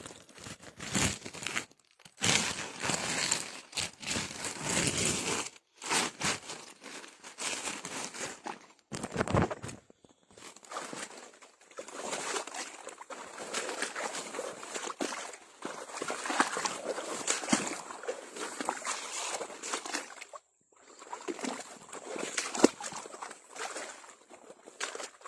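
Water sloshing and dripping with rustling of netting, in irregular bursts, as mesh eel traps are hauled in by hand through the water.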